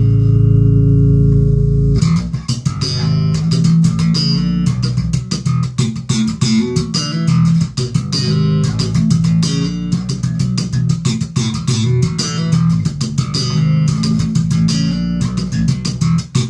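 Alembic Series 2 electric bass guitar played with both pickups on and its filters open: one low note rings for about two seconds, then a fast run of plucked notes follows.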